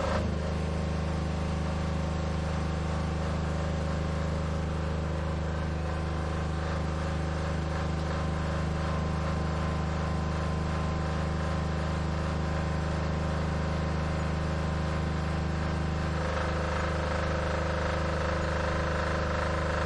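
A small homemade DC-motor water pump runs with a steady hum, and water jets into a plastic tub. The hum's tone changes slightly near the end.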